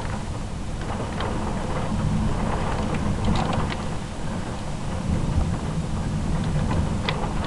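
Thunder rumbling low and continuously, with rain falling and a few sharp raindrop ticks close by.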